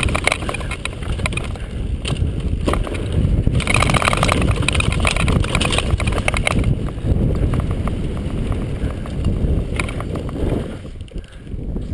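Mountain bike rattling down a rocky dirt trail: tyres crunching over gravel and loose stones, with many sharp knocks and clatters from the bike and wind noise on the camera microphone. The noise drops away near the end.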